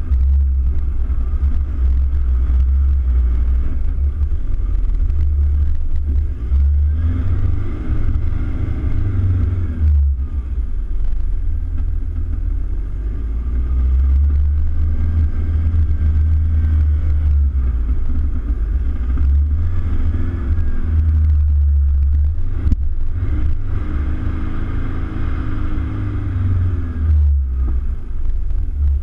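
Toyota Hilux Vigo's engine pulling through soft sand, revving up and easing off several times, over a heavy low rumble.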